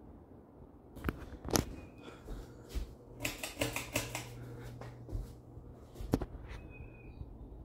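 Pull-chain switch on a Hampton Bay Kodiak ceiling fan clicking several times as the chain is pulled, with the metal bead chain rattling. A low motor hum comes in about three seconds in, on a fan whose capacitor has gone bad.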